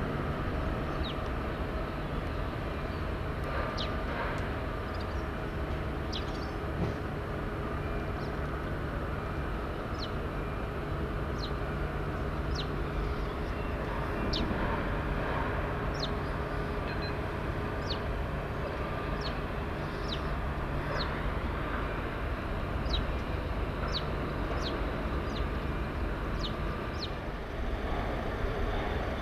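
Steady distant shipyard machinery hum, with short high chirps repeating about once a second.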